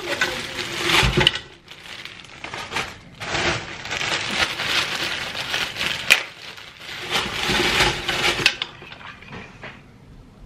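Plastic freezer bags crinkling as frozen diced carrots and pumpkin are shaken out of them into a multicooker's inner pot, the hard frozen pieces clattering in. It comes in three bursts of rustling and clatter, the middle one the longest.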